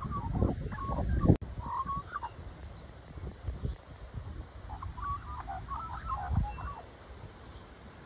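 Australian magpie calling in short, broken phrases: briefly at the start, again about two seconds in, and a longer run from about five to six and a half seconds in. Wind rumbles on the microphone early on, with one sharp click about a second and a half in.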